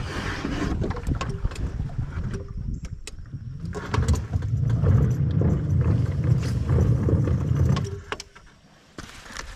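Small creek boat under way: a low rumble with water swishing along the hull, heaviest in the second half, dropping off sharply about eight seconds in.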